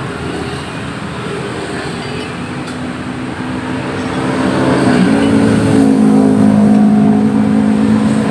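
A motor running, speeding up about halfway through and then holding a steady, louder pitch.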